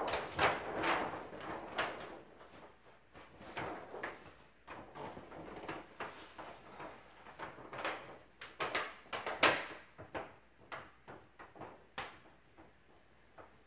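Stiff paper rustling and crinkling in irregular bursts as a sheet of self-adhesive wallpaper and its backing are handled and pressed up against a ceiling, with one louder, sharp sound about nine and a half seconds in.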